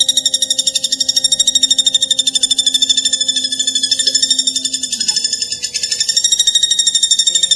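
Platuk bawang (common flameback woodpecker) giving a long, fast rattling trill of about ten notes a second, running on without a break, with a brief dip in loudness about five seconds in.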